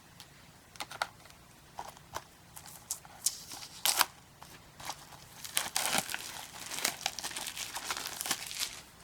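Plastic shrink-wrap on a Blu-ray case crinkling and tearing as it is peeled off. It starts as scattered sharp crackles and snaps, then turns into a dense stretch of crinkling over the last few seconds before stopping.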